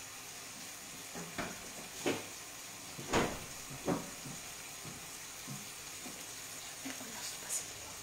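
A pan of tomato and crab sauce with white wine reducing, simmering with a soft sizzle on a gas hob, while about seven sharp knocks and clinks sound, the loudest about three seconds in.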